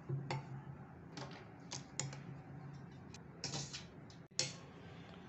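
Part-boiled rice being spooned into a clay cooking pot: a metal spoon clicking and scraping against the pot as the rice drops in, about six short sounds with a slightly longer scrape about three and a half seconds in.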